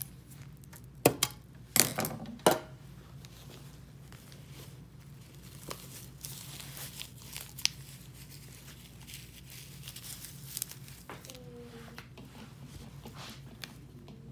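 Three sharp knocks on a stone countertop in the first few seconds, then faint scattered rustling and crinkling as red cloth is handled, over a steady low hum.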